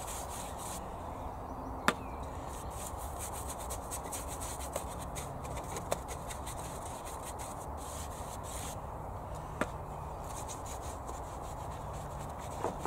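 Paintbrush scrubbing wood stain onto rough pallet-wood fence pickets: a steady scratchy brushing. A few sharp taps come through it, three times, the first the loudest.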